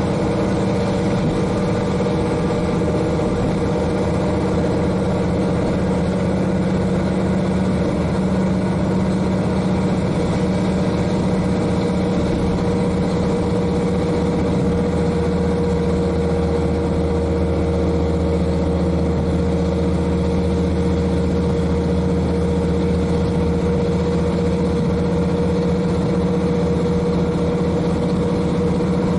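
KiHa 40 diesel railcar's N-DMF13HZI diesel engine running steadily, heard inside the car from directly above the engine, together with the train's running noise.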